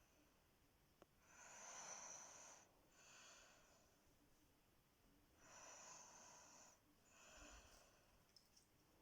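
A woman snoring in her sleep, faint: two slow breaths, each a longer, louder noisy snore on the draw followed by a shorter, softer breath out.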